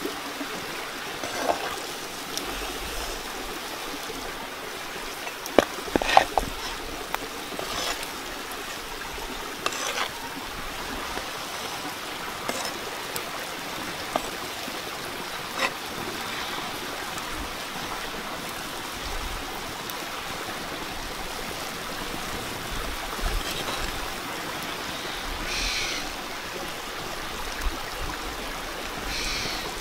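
Curry sauce simmering and bubbling steadily in a clay pot, with scattered sharp knocks and clinks from a spatula and ingredients going in, the loudest cluster about six seconds in.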